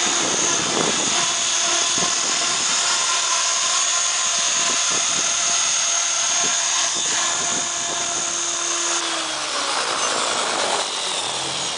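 Align T-Rex 550 electric radio-controlled helicopter flying low and close, its rotors chopping under a high, steady motor whine. About nine seconds in, the whine and rotor tones drop in pitch as it comes down to land.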